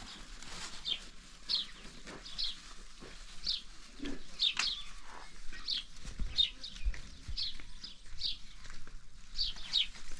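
Small birds chirping: short, high notes that slide downward, repeated about once a second.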